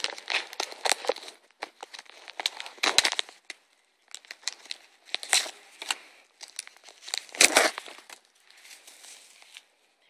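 Plastic bags crinkling and rustling in irregular bursts as a small zip bag of glitter is worked out of a larger bag, with the loudest burst about seven and a half seconds in.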